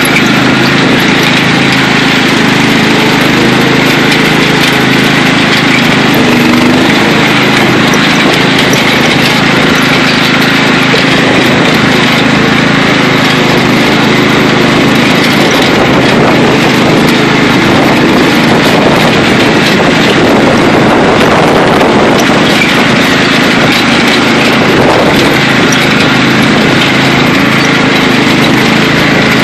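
Riding lawn mower's small engine running steadily at full throttle as the mower is driven flat out.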